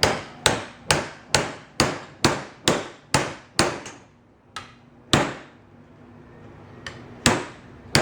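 Hammer pounding a length of copper tubing onto an aluminum patio umbrella rib: about nine sharp strikes at roughly two a second, then a pause and a few single blows further on.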